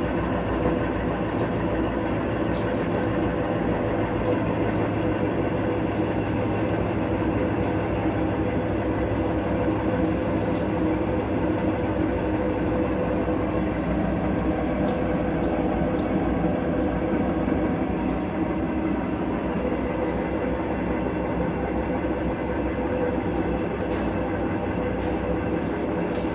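Electrolux LTC12 12 kg top-loading washing machine spinning with a steady, loud rumble that the owner puts down to its bearings.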